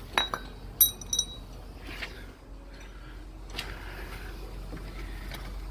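Small metal parts clinking and knocking: a few light knocks, one of them a short ringing clink about a second in, as the water pump pulley and its bolts are taken off the engine.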